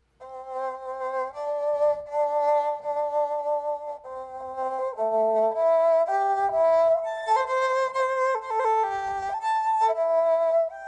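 Erhu sound from a keyboard-played virtual instrument: a phrase of drawn-out, bowed-sounding notes with vibrato, stepping from pitch to pitch every half second to a second or so, with sustained long notes.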